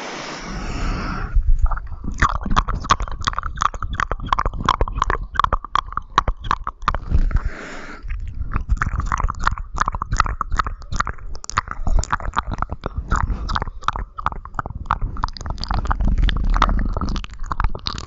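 ASMR mouth sounds: rapid wet clicks and smacks of lips and tongue, with a breathy hiss at the start and again about seven seconds in.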